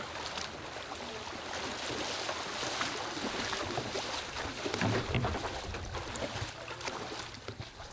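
Several people wading through shallow water, legs splashing and sloshing, with wind buffeting the microphone, strongest about five seconds in.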